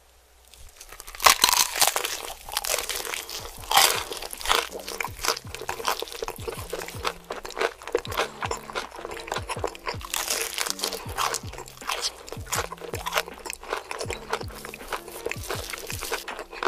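Close-up crisp crunching of fried chicken batter being bitten and chewed, a dense run of crackles that starts about a second in after a quiet start, over soft background music.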